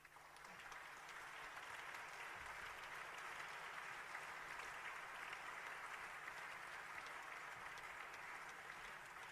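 Audience applauding, swelling over the first second or two and then holding steady.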